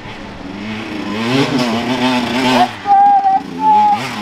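Enduro dirt bike engine revving in surges as the bike, stuck on a steep, slippery woodland climb, is pushed and muscled upward, its pitch rising and falling.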